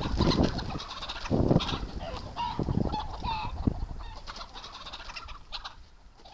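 Chickens in a free-range run clucking and calling, with several loud low rumbles that are strongest in the first two seconds and fade towards the end.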